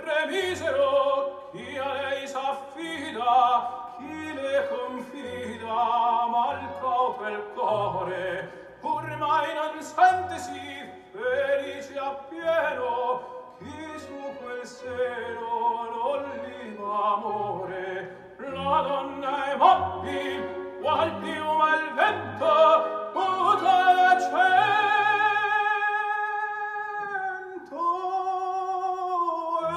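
Recorded operatic singing with instrumental accompaniment, played through Sonus Faber Toy Tower floorstanding speakers driven by home-built KT120 valve monoblock amplifiers and heard in the room. The voice sings with vibrato and holds a long note near the end.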